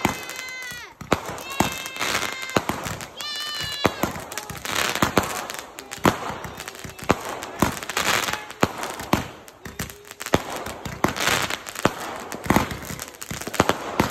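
Aerial fireworks going off: a fast, irregular run of sharp bangs and crackling. Three short high-pitched wails come in the first four seconds.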